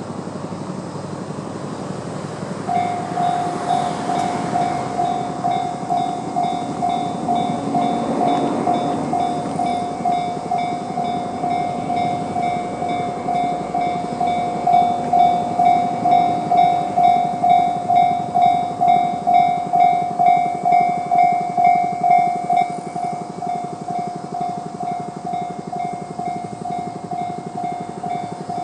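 Electronic level-crossing warning bell in the JR standard tone, starting about three seconds in and ringing steadily at about two strokes a second: the crossing's warning that a train is approaching.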